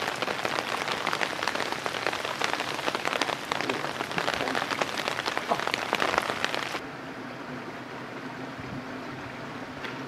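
Dense crackling patter of many small ticks, like drops striking a surface. About seven seconds in it cuts off suddenly, leaving a quieter steady hiss with a faint low hum.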